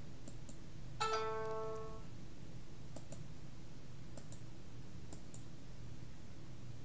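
Faint computer mouse clicks, coming in quick pairs several times, as items are picked from a dropdown menu. About a second in, a brief pitched chime sounds for about a second over a low steady hum.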